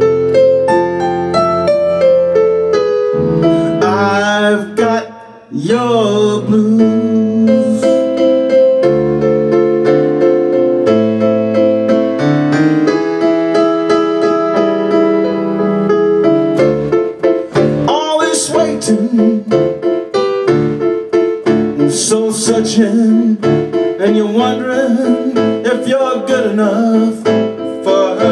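Casio digital keyboard on a piano sound played with both hands: an instrumental passage of chords and runs, briefly dropping away about five seconds in before picking up again.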